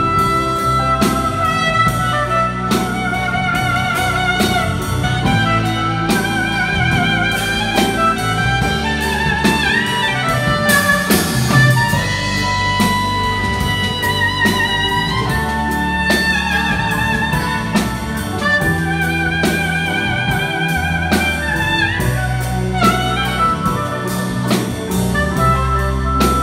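Live jazz band playing: a lead melody on soprano saxophone and trumpet, held with vibrato, over electric bass, drum kit, keyboard and electric guitar. A cymbal crash comes about eleven seconds in.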